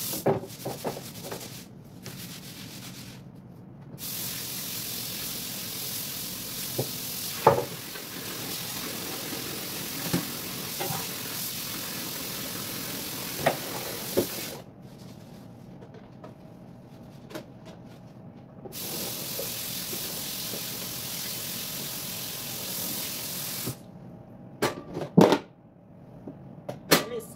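Tap water running into a sink as something is washed under it, with light knocks of things handled in the basin. The water is shut off twice and comes back on each time, then stops for good near the end, followed by a few loud knocks.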